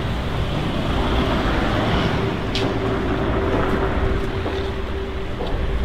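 Steady mechanical rumble with a constant low hum running underneath, and a few faint clicks.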